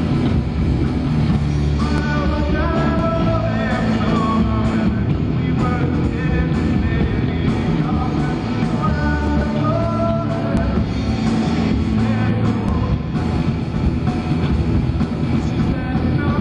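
Live rock trio playing: electric guitar, bass guitar and drum kit together, with a wavering melody line coming in twice over the band, about two seconds in and again about nine seconds in.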